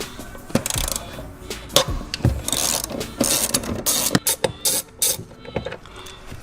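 Ratchet wrench clicking as it turns 10 mm seat bolts, in short irregular bursts of ratcheting with knocks in between, busiest in the middle of the stretch.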